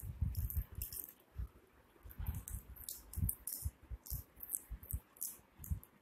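Wire parrot cage rattling in a quick, irregular series of light metallic clinks, mixed with dull low bumps.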